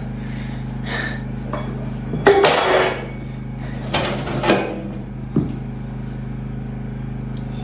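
Heavy metal engine parts knocking and clanking a few times while being handled, over a steady low hum.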